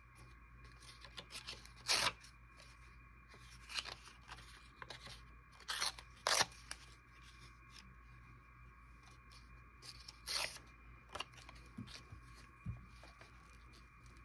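Patterned paper scraps being handled and torn by hand: soft rustling with several short, sharp rips spread through.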